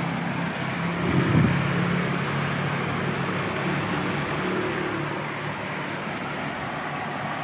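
Heavy rain falling in a steady, even hiss. A low engine hum, most likely a vehicle passing in the rain, sounds under it and fades away over the first five seconds.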